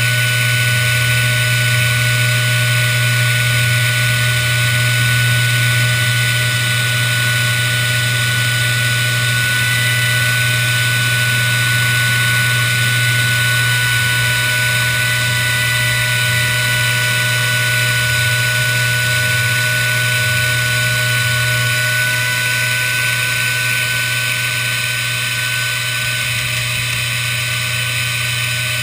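Hobby CNC router's spindle running steadily while the cutter mills sheet stock: a constant high whine over a low hum.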